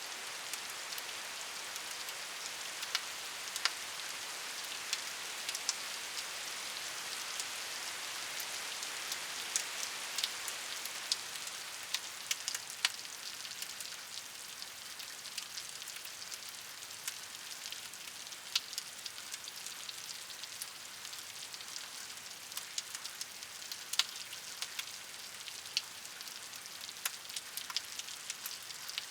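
Steady rain: an even hiss of falling rain with many sharp individual drops ticking on a hard surface, a little heavier in the first half.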